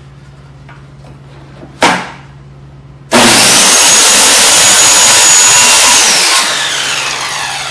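A single sharp knock, then a corded circular saw starts abruptly about three seconds in and runs at full speed for about three seconds, finishing a cut through a sheet of plywood. It is then released and winds down, its whine falling in pitch as the blade spins to a stop.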